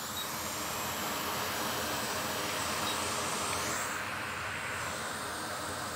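Steady rushing-air hiss from a hot air rework station blowing on a flux-covered logic board, over the running fan of a fume extractor. The tone shifts slightly about four seconds in.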